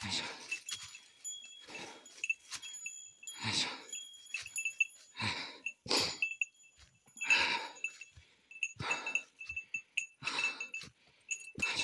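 A hiker's heavy breathing while climbing, about one breath every second or so, with a small bell jingling along at the same time.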